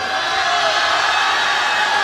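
Concert audience shouting and cheering, many voices calling out at once, swelling just as it starts and staying loud.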